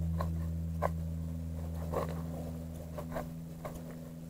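Knife cutting into a small catfish on a plastic cutting board: a handful of short scraping ticks as the blade scores the flesh and meets the board. Under them runs a low steady hum that slowly fades.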